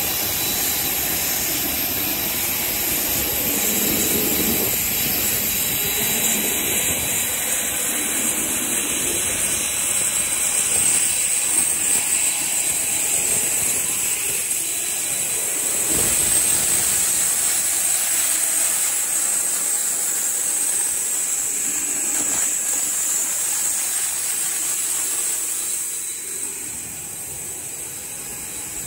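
Boeing 737-800's CFM56 jet engines running, a steady high-pitched hiss and whine that eases off a little near the end.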